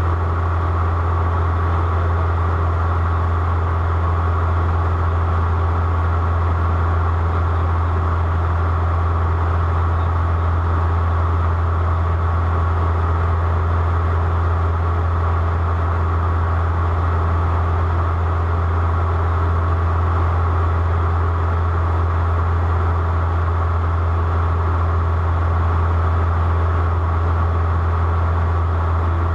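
Aircraft in flight, a steady engine drone: a strong low hum with a fainter steady tone above it and an even rush of noise, unchanging throughout.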